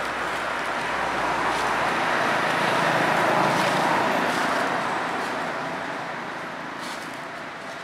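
A road vehicle passing by: a steady tyre-and-engine noise that swells to a peak about three to four seconds in, then fades away.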